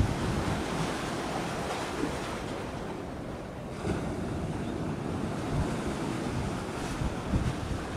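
Wind buffeting the microphone in uneven low gusts, over a steady hiss of wind and sea.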